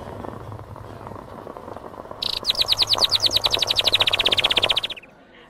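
Title-card sound effect: a low rustling bed with light clicks. About two seconds in, a loud, rapid bird-like trill of short falling chirps (roughly a dozen a second) joins it, and both cut off abruptly near the end.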